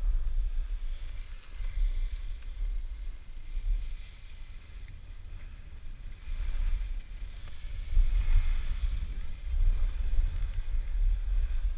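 Wind buffeting the microphone of a camera worn by a skier moving downhill, a gusty rumble that rises and falls, with the hiss of skis sliding over groomed snow swelling about halfway through.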